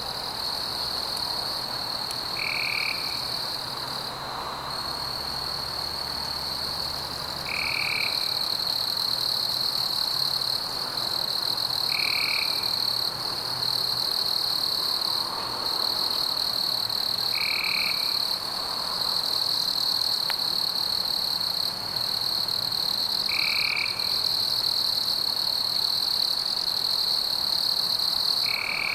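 Night forest ambience: a continuous high-pitched insect trill, with a short call repeating about every five seconds over it.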